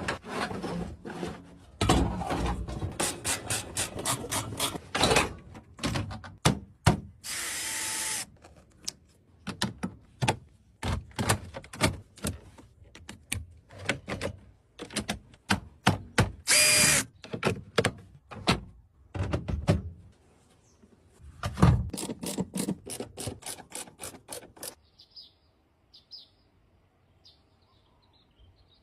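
A long run of sharp clicks and knocks from hand work with tools, with two short hissing bursts, one about a third of the way in and one past the middle; near the end it gives way to faint bird chirps.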